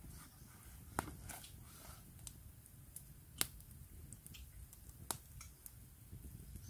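Small wood campfire crackling: scattered sharp pops and snaps, three louder ones about a second, three and a half and five seconds in, over a low steady rumble.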